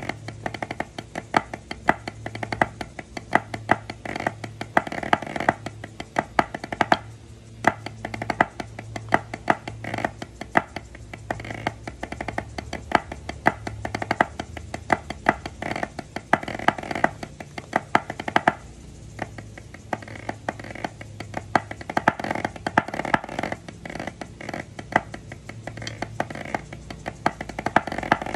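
Drumsticks playing fast, dense rhythmic patterns of dry, sharp taps on a drum pad, with two short breaks in the playing.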